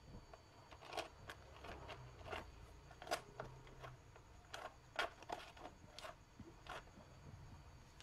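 Faint, irregular clicks and taps of a bolt being handled and fitted by hand at the Yamaha NMAX's plastic radiator cover, the sharpest about three and five seconds in.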